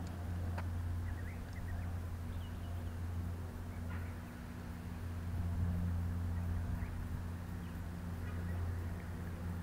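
A steady low hum, with faint short bird chirps now and then.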